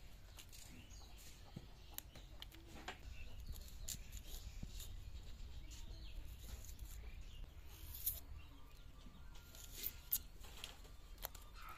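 Faint clicks and crackles of a red onion being peeled and cut on an upright boti blade, with a few sharper clicks in the second half.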